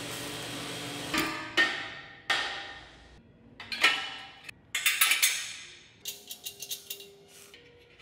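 Welding hiss on a metal tube chassis for about a second, then a series of sharp metal-on-metal strikes that ring out briefly as suspension parts are fitted to the frame. Near the end comes a quick run of light clicks.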